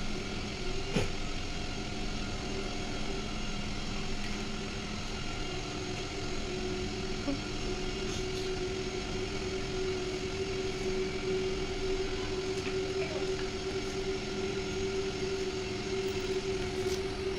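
Steady motor hum at a constant pitch, with a few faint clicks.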